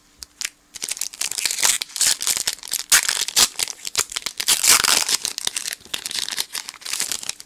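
Foil Pokémon booster pack wrapper torn open and crinkled by hand: a dense run of sharp, crackling rustle that starts about a second in and stops just before the end.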